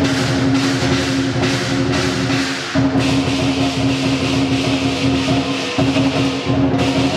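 Lion dance percussion: drum beats and cymbal clashes in a brisk, regular rhythm, over a sustained low ringing tone that cuts off and starts again twice.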